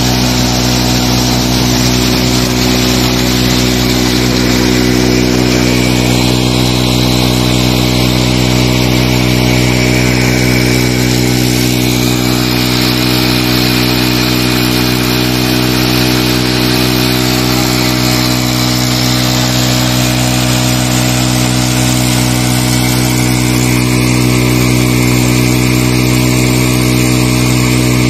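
Honda CD 70 motorcycle's single-cylinder four-stroke engine running steadily at a constant speed, driving a tubewell water pump. Water gushes from the outlet pipe into a concrete tank.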